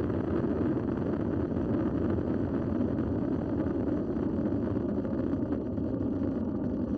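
Soyuz rocket's first stage, four strap-on boosters and the core engine, burning during the climb after liftoff: a steady, unbroken rumble.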